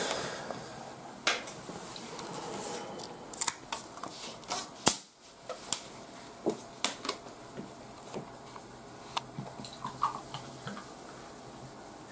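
A string of sharp clicks and taps: a plastic screw cap being twisted off a soda bottle and the bottle and a glass being handled.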